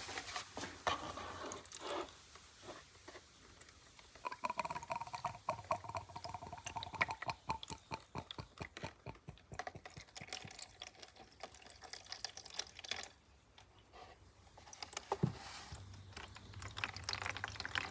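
Diesel fuel draining from a used fuel filter into a plastic bottle: a faint trickle with many small drips and splashes that starts about four seconds in and stops suddenly around thirteen seconds, with light handling clicks of the filter housing before and after.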